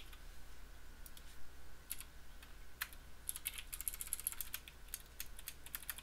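Typing on a computer keyboard: a few scattered key clicks, then a quick run of keystrokes from about three seconds in.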